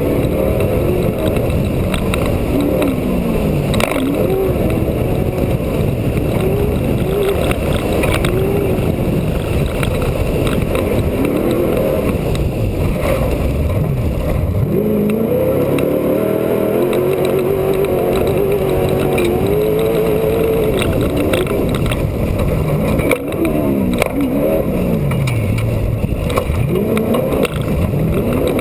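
Off-road race truck's engine at full race pace, its revs rising and falling again and again as the driver works the throttle, with knocks and rattles from the rough dirt track.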